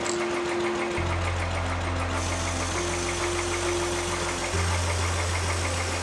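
Motorcycle engine idling in first gear with the rear wheel and chain turning. From about two seconds in comes the steady hiss of aerosol chain lube sprayed onto the moving chain.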